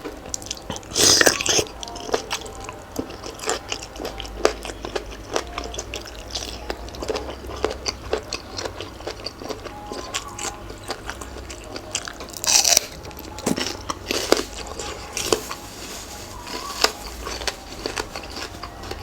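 A person chewing and crunching mouthfuls of spicy pounded seafood salad with raw vegetables, in a run of short crunches. Two louder crunches stand out, about a second in and again about two-thirds of the way through.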